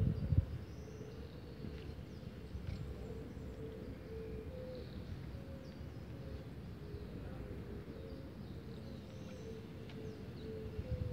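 Outdoor ambience: a low rumble of wind on the microphone, with faint bird chirps and a faint wavering tone; louder low thumps right at the start and again near the end.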